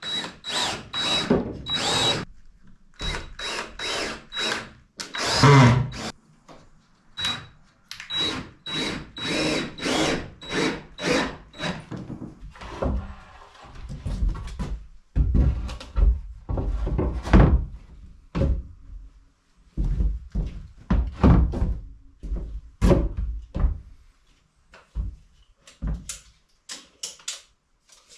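Cordless drill driving into the wood of a door frame in a series of short bursts with a high whine. About halfway through it gives way to wooden boards knocking and thudding as they are handled on a lumber stack.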